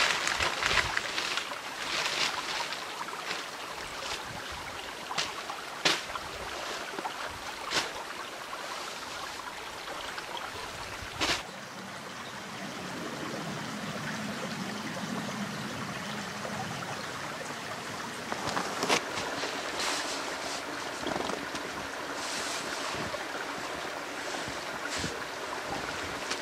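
Steady rush of a small stream running through snowy woods, with scattered rustles and knocks of outdoor gear being handled.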